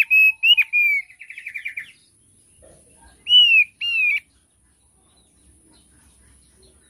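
Opior paruh tebal (thick-billed heleia) singing: a quick run of clear, curved whistled chirps that breaks into a rapid trill and stops about two seconds in, then two more whistles about a second later.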